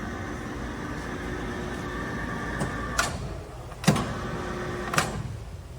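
13" x 48" DoAll engine lathe running with a steady gear whine from the headstock, which stops with a click about halfway through, followed by two more sharp clunks.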